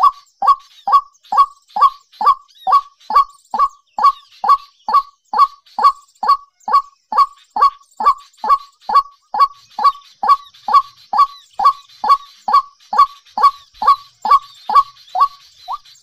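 A bird calling over and over, a loud short note about twice a second, each one falling in pitch, kept up without a break. Fainter high chirping from other birds or insects sits behind it.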